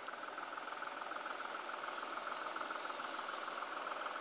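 A steady chorus of insects, an unbroken fast trill.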